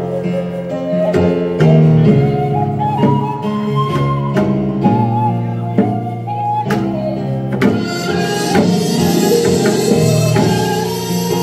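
Korean traditional (gugak) ensemble playing: a melody of held notes stepping from pitch to pitch, over sharp percussion strikes, growing busier and brighter about eight seconds in.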